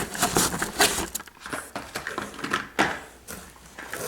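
Irregular rustling, tapping and clattering of packaged items being handled and set down one after another.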